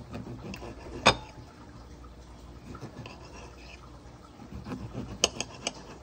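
Kitchen knife cutting through soft, skinned tomatoes in a frying pan, with quiet scraping and the blade clicking sharply against the pan, once about a second in and several times near the end.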